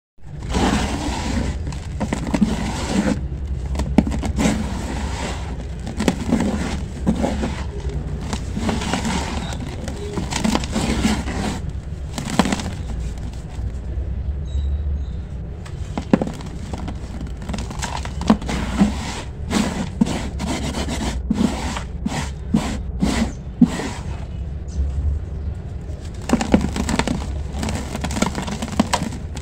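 Dry sand-and-cement chunks being crushed and stirred by hand in a bowl: irregular gritty crunching and scraping with many sharp cracks, over a steady low rumble.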